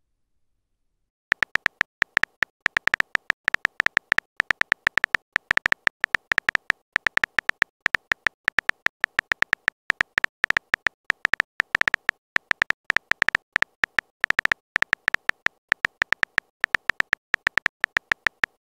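Simulated phone-keyboard typing sound: a rapid, uneven stream of short, high clicks, one per letter as a text message is typed out. The clicks start about a second in.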